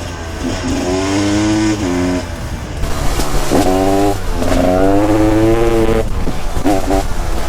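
Husaberg TE 300 single-cylinder two-stroke supermoto engine revving hard, its pitch climbing and falling several times. There is a steep climb about three and a half seconds in and a drop near six seconds.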